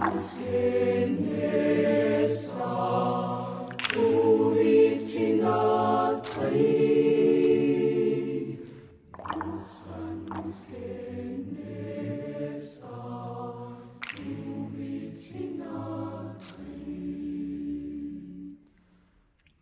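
Choir singing. It is strongest in the first half, goes softer about halfway through, and stops shortly before the end.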